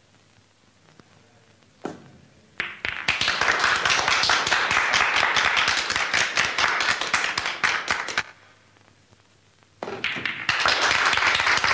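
The sharp click of a billiard shot about two seconds in, followed by several seconds of applause from onlookers. A second shot clicks near the end and the applause starts again.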